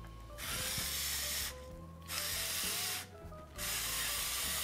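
Pepper mill grinding black pepper in three spells of gritty hiss, each starting and stopping sharply, the last beginning near the end.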